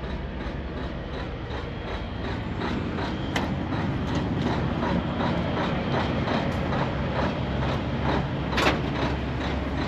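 Heavy diesel truck engine idling steadily, with faint, evenly spaced ticks and a couple of sharp clicks.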